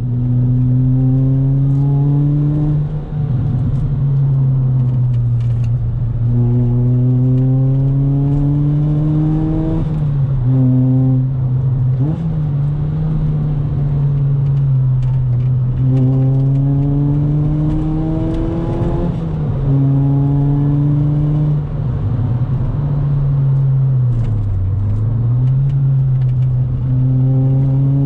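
Ford Fiesta ST Mk6's 2.0-litre four-cylinder engine, fitted with a new aftermarket exhaust whose catalyst and mid-pipe have been replaced, heard from inside the cabin with the windows up. It is pulled hard through the gears: the revs climb in repeated pulls of one to three seconds and drop at each shift or lift-off.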